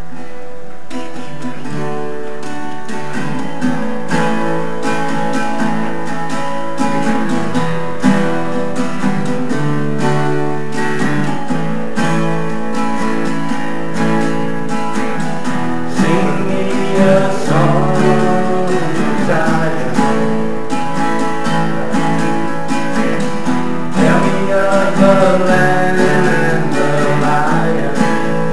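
Two acoustic guitars strummed together, playing a gospel song.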